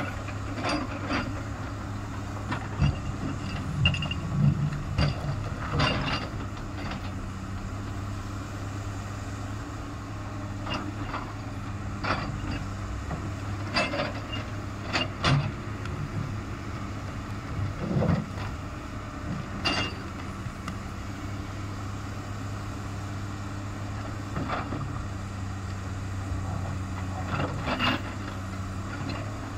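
Komatsu PC300 hydraulic excavator's diesel engine running steadily under load while its steel bucket bashes and scrapes quartzite boulders to break them, giving irregular clanks and knocks of metal on rock.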